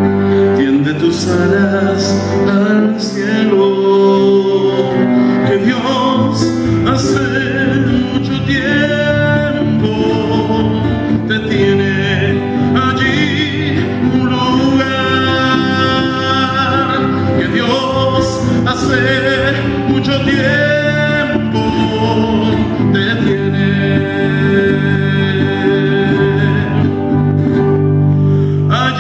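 A man singing a slow song with vibrato, accompanied by acoustic guitar.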